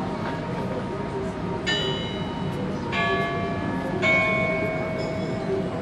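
Bells ringing: three separate strikes about a second apart, each at a different pitch and ringing on after it is struck, over a steady background hum.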